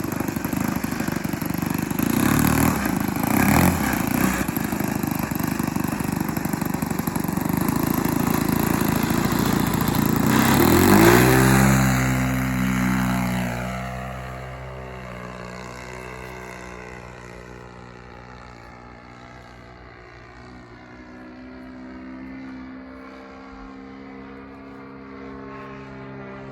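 Saito 125 four-stroke glow engine of an RC plane running loud at high throttle. About eleven seconds in its note drops sharply as the plane passes, then keeps falling slowly in pitch and grows quieter as the plane flies away.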